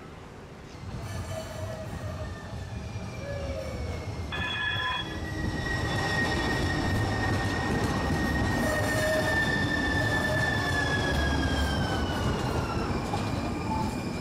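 A MUNI Metro streetcar running on the rails with its wheels squealing. Several high squeal tones sound over a rumble that grows louder from about a second in, and the squeal slowly falls in pitch near the end.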